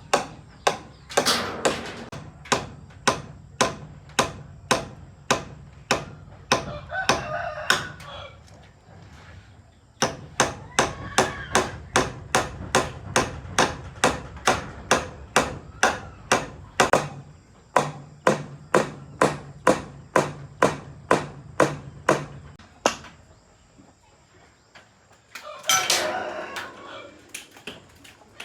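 Steady hammer blows, about two a second, with a pause near the end. A rooster crows several times over them.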